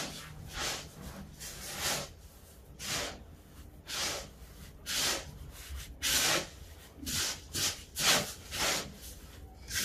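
Hands rubbing dry couscous grains together in a wooden bowl, working a little oil into them: a gritty swishing, stroke after stroke, about once a second and a little quicker in the second half.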